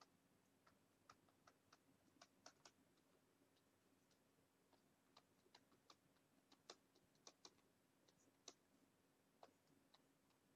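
Near silence with faint, irregular clicks from computer use.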